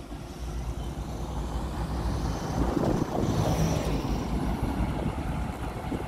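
Diesel engine of a motor grader running as it grades the road bed, growing louder over the first few seconds as it approaches.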